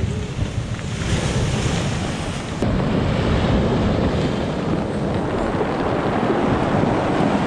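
Heavy storm surf breaking and washing over a rocky, cobbled shore, with strong wind buffeting the microphone.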